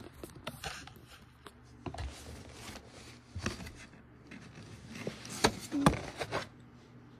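Handling noise from working at toy packaging with scissors and moving the recording device: scattered rustles, scrapes and clicks, with a few sharp knocks about five and a half to six seconds in.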